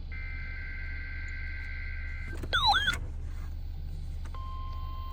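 NOAA Weather Radio SAME alert header: a burst of data tones switching between two steady pitches, about 1.5 and 2 kHz, lasting about two seconds. A brief loud wavering squeak cuts in about halfway through. After a short gap the steady 1050 Hz warning alarm tone begins near the end.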